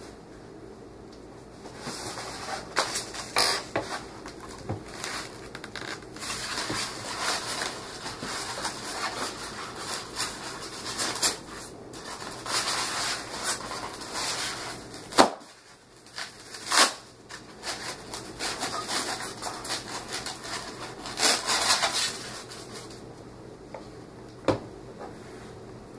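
Rustling and handling of packaging as a boxed toy figure is unpacked, with scattered knocks and clicks. The sharpest knocks come about 15 and 17 seconds in.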